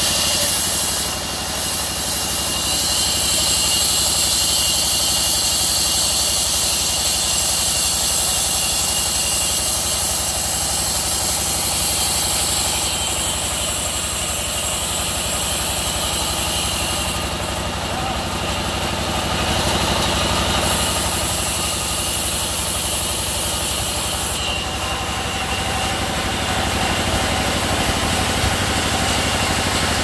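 Sawmill saw running steadily: a loud, continuous mechanical noise with a high hiss that swells and drops a few times.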